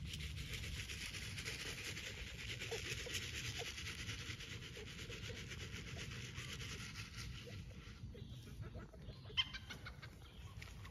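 Chickens clucking softly over a steady outdoor hiss that fades about two-thirds of the way through, with one brief sharp sound about nine seconds in.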